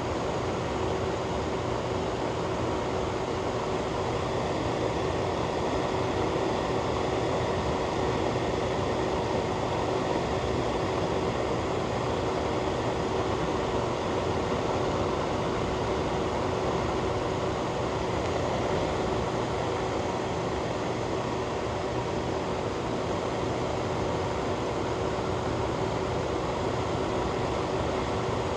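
Electric fan running steadily: an even rush of air with a low, steady hum from the motor.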